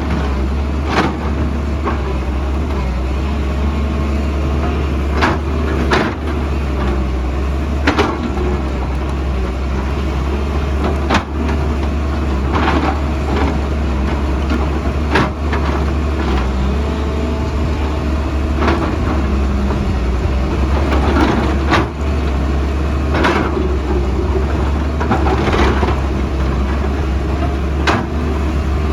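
Excavator's diesel engine running steadily under load, with irregular sharp knocks and clanks every second or two as the bucket works rock and earth.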